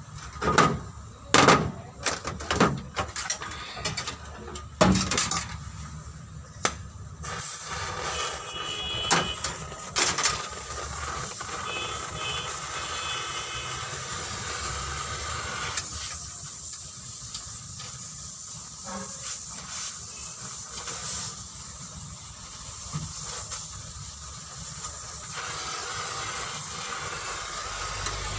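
About a dozen sharp knocks and clatters over the first seven seconds, then a steady hiss that runs on with little change.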